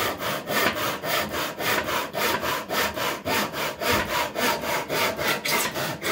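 Hand back saw crosscutting a wooden table leg, guided in the slots of a plastic miter box: steady back-and-forth strokes, about three a second.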